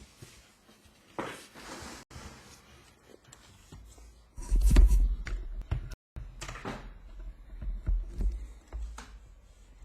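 Handling noises: scattered clicks and knocks, with one heavier thump about halfway through.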